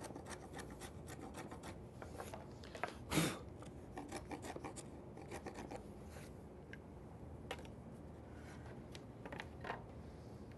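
Wood chisel scraping and paring rough waste from the floor of a half-lap notch cut in a 2x4. It is a quick run of short scrapes, with one louder scrape about three seconds in. After about six seconds the scrapes thin out as hands brush off the chips.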